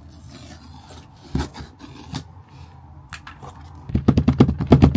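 Cardboard headphone box being opened by hand: scattered scrapes and light knocks, one firmer knock about a second and a half in, then a quick burst of rapid rasping strokes near the end.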